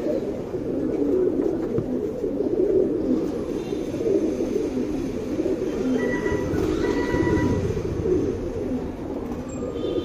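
Domestic pigeons cooing together in a loft, a steady overlapping low murmur with no break.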